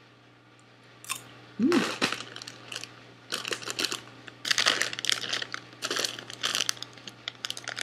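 Crunching a piece of cheese-coated popcorn, then a shiny plastic snack bag crinkling in a run of sharp bursts as it is picked up and handled.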